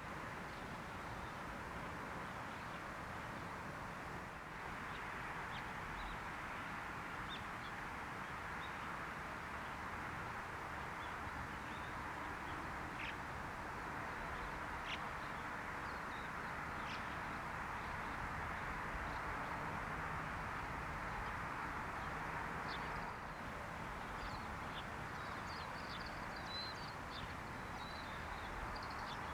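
Steady outdoor background hiss with faint, short, high bird calls scattered through it, several coming close together near the end.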